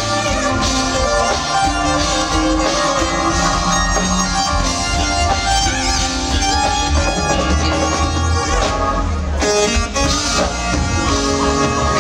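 Live R&B/funk band playing, with a keytar taking a lead line of held, wavering notes that bend in pitch, over the band's bass and rhythm.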